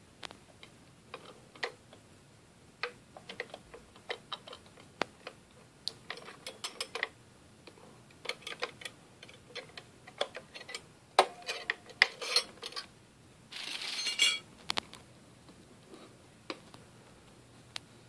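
Steel beaters of a 1970s GE stand mixer being handled, ejected and set down: a run of irregular clicks and metallic clinks, some ringing briefly. Late on there is a short rustle, like crinkling plastic.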